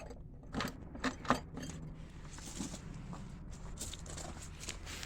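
A few light clicks and knocks in the first second and a half, then soft rustling over a faint steady low hum: handling noise on the tractor.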